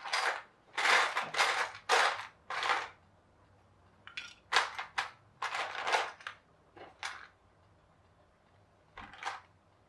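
Plastic building bricks clattering in a clear plastic storage tub as a hand rummages through them, in several short bursts: a quick run of rattles at the start, another after a short pause, and one more near the end.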